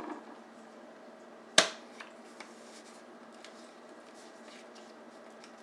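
Hands pressing a taped paper label onto a plastic mustard squeeze bottle: one sharp click about a second and a half in, then a few faint ticks, over a steady low hum.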